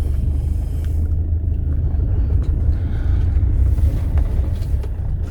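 A car driving, heard from inside the cabin: a loud, steady low rumble of engine and road noise, with a few faint knocks and rattles over it.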